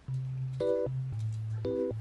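Background music starts: an instrumental with a stepping bass line and short chords about once a second.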